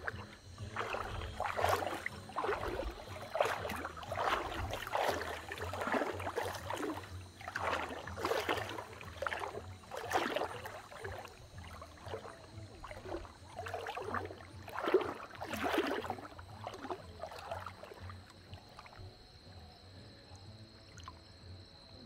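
River water swishing and sloshing around legs wading through it, a surge with each stride, about one a second, dying away near the end.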